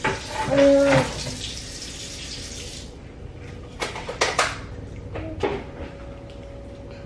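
Water running from a tap for about three seconds, with a toddler's brief high vocal sound near the start. A few sharp clattering knocks follow around the middle.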